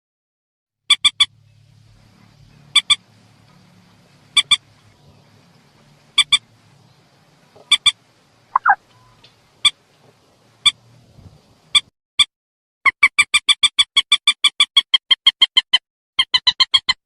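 Lure recording of a mandar sawah (rail) call used for bird hunting. Short sharp notes come in threes about every two seconds, then singly. Near the end they break into a fast run of rapid repeated notes.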